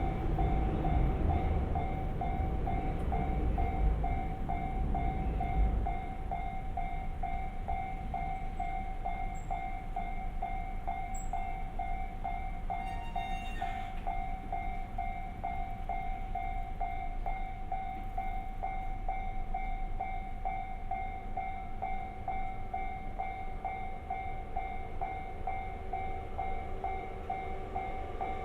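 Japanese level-crossing warning bell ringing in an even, rapidly repeating ding. A train rumbles past over it for the first six seconds or so, then fades.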